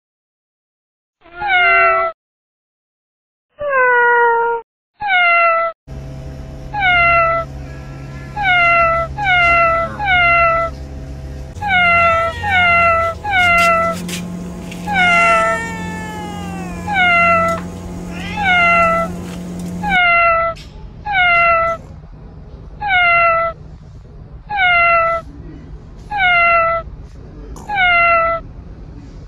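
Domestic cat meowing over and over, short meows falling in pitch at roughly one a second, with one longer drawn-out meow about halfway through. A low steady hum lies under the meows from about six seconds in.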